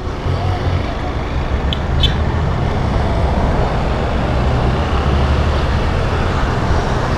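Motorcycle engine running as the bike pulls away and rides on, with steady wind and road noise rushing over a helmet-mounted microphone.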